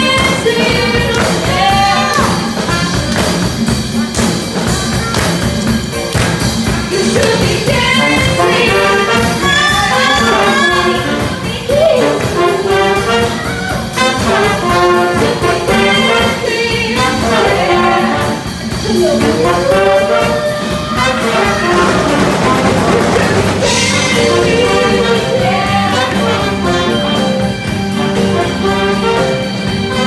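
Live band with a horn section of saxophones, trumpet and trombones playing a disco song, backed by electric guitar, keyboards and drums, with singers at the microphones; the brass is prominent in the mix.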